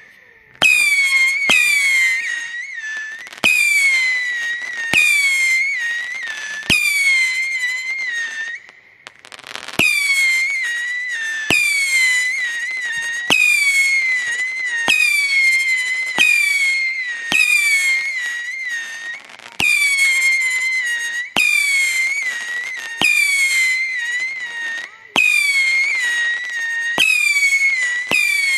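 Fireworks firing whistling shots in a steady series, about one every one and a half to two seconds: each a sharp pop followed by a high whistle that dips slightly in pitch and fades, with a brief lull a little past a third of the way through.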